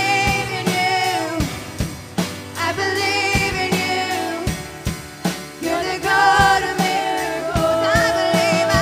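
Live worship music: a woman singing over keyboard and drum kit, ending on a long held note.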